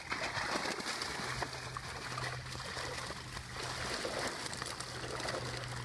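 Water streaming and trickling out of the mesh of a fishing keepnet full of fish as it is hauled up out of the canal, with a low steady hum from about a second in.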